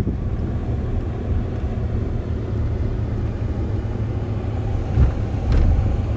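Steady low rumble of a car, heard from inside its cabin, with a brief knock about five seconds in.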